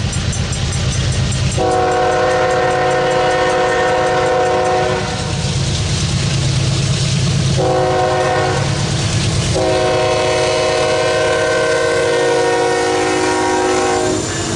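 Diesel freight locomotive's air horn sounding a chord in three blasts: a long one, a shorter one and a final long one, in the grade-crossing pattern. A low diesel rumble runs between the blasts as the locomotives approach, and they pass close by near the end.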